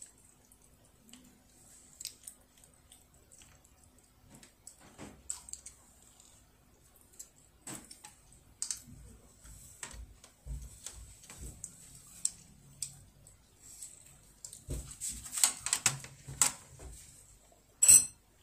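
Wooden chopsticks clicking and scraping against a white ceramic rice bowl as a child eats, with soft chewing between the clicks. A cluster of quick clicks comes about three quarters of the way through, and a sharp, louder clack near the end as the chopsticks are put down on the tray.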